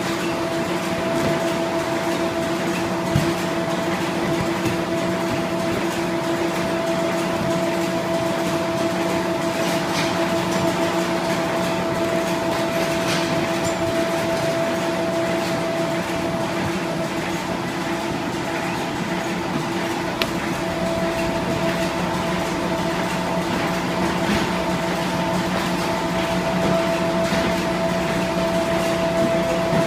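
Box folder-gluer machine running steadily, a constant mechanical hum with a few held tones and an occasional light click.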